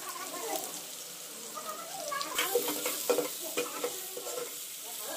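Food frying in a large aluminium pot over a wood fire, sizzling steadily while it is stirred. A run of scrapes and clinks comes in the middle as the spoon works against the pot.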